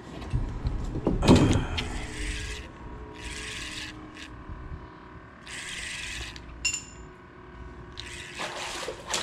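Spinning reel whirring in four short spurts as a hooked peacock bass is reeled in, with a louder knock about a second in and a faint low rumble underneath.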